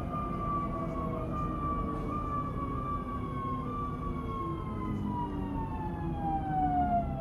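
Electric traction drive of a Škoda RegioPanter electric multiple unit whining, the pitch sliding slowly down as the train slows into a station, over the low rumble of the wheels on the track, heard inside the passenger saloon.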